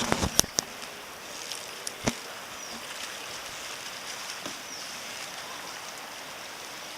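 Strong wind blowing steadily, an even rushing noise. A quick cluster of sharp knocks comes at the start and one more knock about two seconds in.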